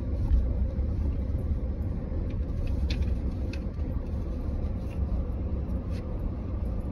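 Car cabin rumble as the car drives slowly along a dirt road: a steady low hum, with a few faint ticks.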